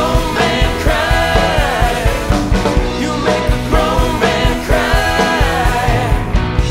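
Rock band playing live, a lead singer over electric guitars, bass and drums with a steady beat.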